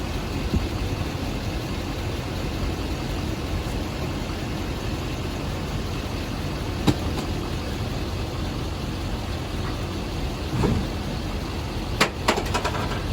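Motor vehicle running with a steady low rumble, with a sharp click about seven seconds in and a few more clicks or knocks near the end.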